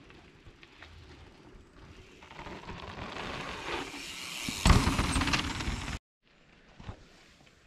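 Mountain bike clattering over a dirt bike-park trail, quiet at first and growing louder, with a heavy thump a little past halfway. The sound cuts off abruptly about six seconds in.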